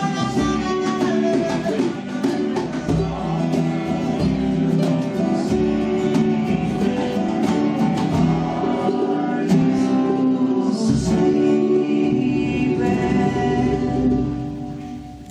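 Live band playing the closing instrumental bars of a song, guitar to the fore over a steady beat, the music dying away near the end.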